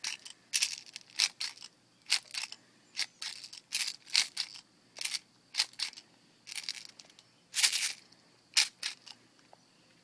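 Airsoft BB speed loader being pushed repeatedly, feeding plastic BBs into a balloon: a string of short, sharp clicking rattles, about one or two a second.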